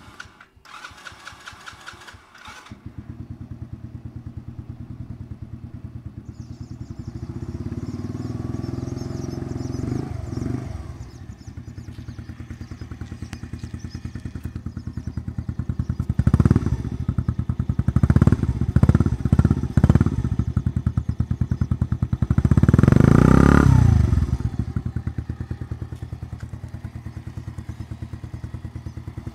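Junak 901 motorcycle engine cranked on the starter and catching about two seconds in, then idling with a steady beat. The throttle is blipped several times, with the longest and loudest rev about 23 seconds in.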